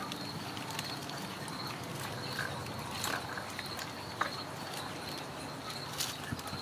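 Kittens playing on and around a wicker basket and cardboard scratcher: a few soft taps and scratches, with one sharper click a little past the middle, over a steady hiss and a faint high whine.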